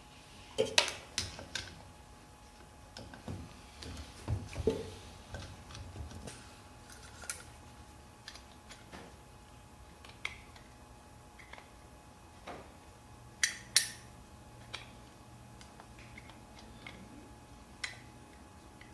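Small metal carburetor parts and a screwdriver clicking and clinking as a carburetor is taken apart by hand, in scattered light taps. The sharpest pairs of clinks come about a second in and again past the middle.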